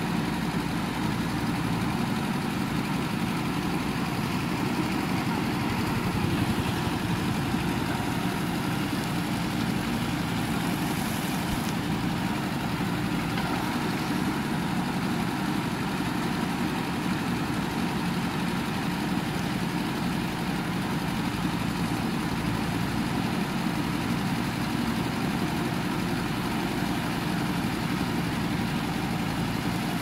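JCB 3DX backhoe loader's diesel engine running steadily while the backhoe arm digs, a continuous even drone with a slight swell about six seconds in.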